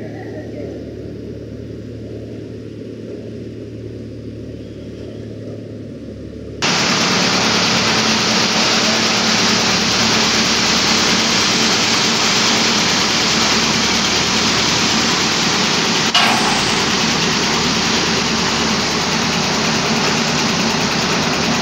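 Paddy thresher running steadily: a moderate hum that becomes much louder, with a dense rushing clatter, about a third of the way in, and a single knock about three-quarters of the way through.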